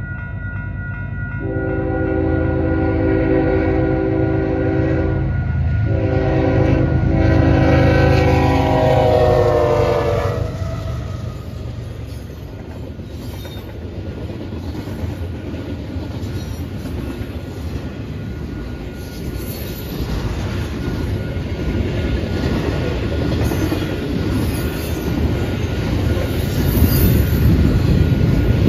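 Freight train's locomotive horn sounding for a grade crossing: two long blasts of a multi-note chord, the second dropping in pitch as the locomotive passes. Then the double-stack intermodal cars roll through with a steady rumble and wheel clatter that grows louder near the end.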